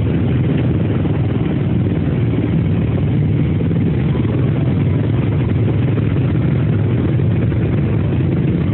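Steady low drone of a vehicle's engine and running noise, heard from inside the vehicle.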